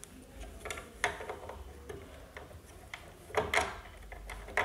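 Metal parts of an Usha Janome Dream Stitch sewing machine's bobbin hook assembly clicking and scraping as the hook race ring and holder are worked back into place by hand. Scattered light clicks, with a louder cluster about three and a half seconds in.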